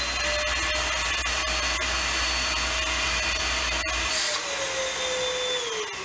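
Bissell Big Green Commercial Hercules Slim Vac stick vacuum running on low power with its nozzle sealed against a water-lift gauge, a steady high motor whine. About four seconds in a brief hiss of air comes and the pitch dips a little; near the end the whine falls in pitch as the motor winds down.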